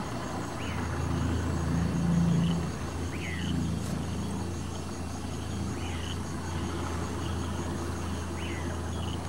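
A small boat's motor runs with a steady low hum. Over it, a bird gives a short call that falls in pitch, repeated every couple of seconds, and insects keep up a faint high trill.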